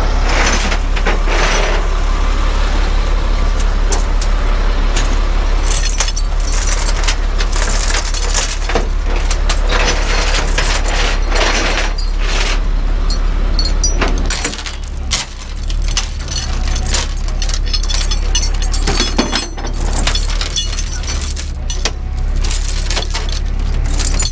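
A tow truck's engine idling steadily underneath, with scattered metallic clanks and rattles over it. Near the end, steel tie-down chains jangle as they are handled on the rollback's diamond-plate deck.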